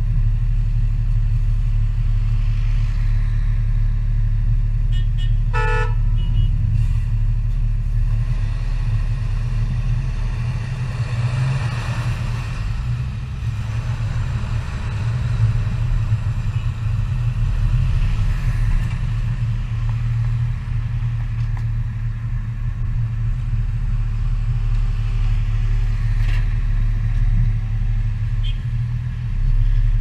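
Low, steady rumble of a car's engine and road noise heard from inside the cabin. A car horn toots once, briefly, about six seconds in.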